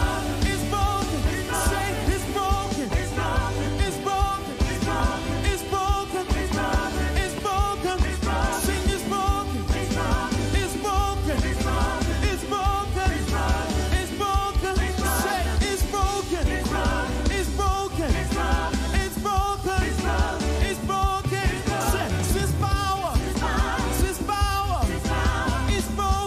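Live gospel worship song sung by a group of singers over a band with a steady beat; the lyrics run "Sin's power… it's broken."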